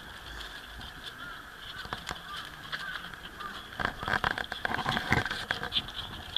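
Newborn mini pig piglets squeaking and grunting as they play-fight. Scuffling and clicks of small trotters on paving grow louder about four seconds in.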